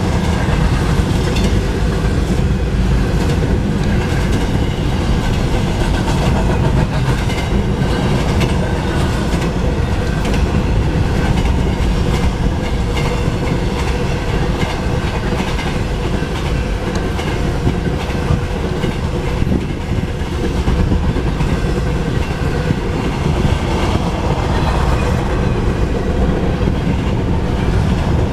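Double-stack intermodal freight cars rolling past: loud, steady noise of steel wheels on rail, with a constant clickety-clack of wheels striking rail joints.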